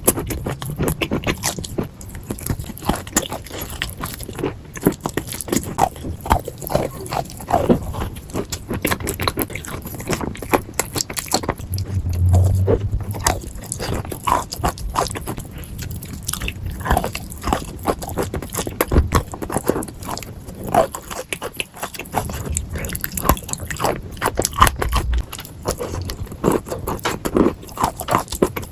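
Crunchy food being bitten and chewed close to the microphone, with a steady run of irregular crunches.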